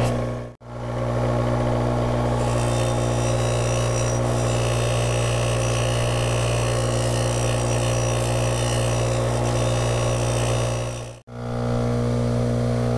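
Bench grinder motor running steadily with a steady hum, a Scotch-Brite unitized wheel spinning on it while steel tap-wrench parts are held against the wheel to clean and deburr them. The sound drops out sharply twice, once shortly after the start and once near the end.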